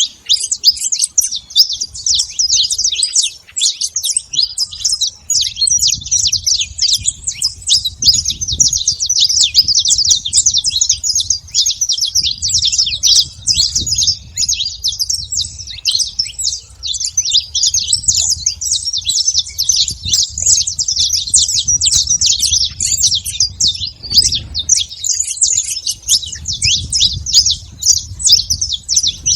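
A flock of saffron finches chirping and singing together, a dense, unbroken chatter of many overlapping high calls.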